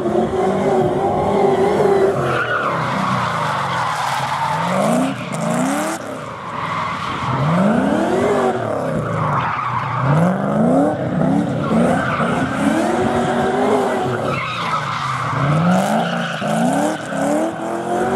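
Nissan 200SX S14 drifting: the engine revs climb and fall over and over while the rear tyres spin and screech in long slides.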